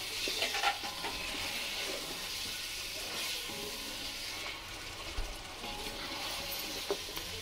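Mutton pieces frying in oily masala in a large cooking pot, stirred with a flat spatula: a steady sizzling hiss that swells now and then, with light scraping of the spatula on the pot.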